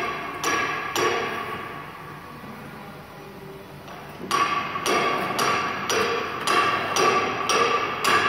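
Huatai automatic flatbed die-cutting machine cycling, each stroke a sharp metallic clack. Two clacks come in the first second, then a lull of about three seconds, then a steady run of clacks about two a second over a steady high whine.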